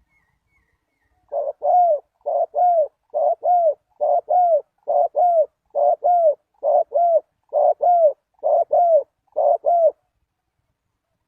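Spotted dove cooing: about ten two-part coos, a short note then a longer falling one, repeated roughly once a second and then stopping.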